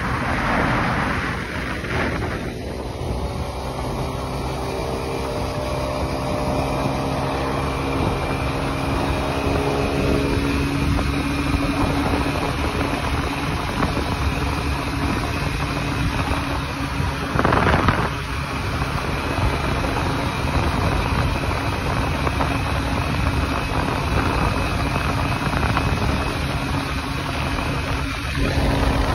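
Motorcycle engine running at steady cruising speed, with wind rushing over the microphone and tyre noise on the bridge deck. Some of the engine tones sink slowly in pitch over the first several seconds, and a short louder whoosh comes a little past halfway.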